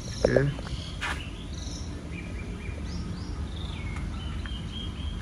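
Small birds chirping and whistling in short high calls over a steady low outdoor background. A brief, louder pitched call with a falling tone comes about a quarter second in.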